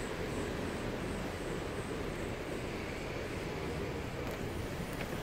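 Steady tyre and engine noise of a car being driven along a road.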